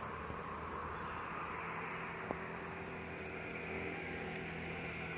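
Steady outdoor background noise: a low hum under a hiss, with one sharp click about two seconds in.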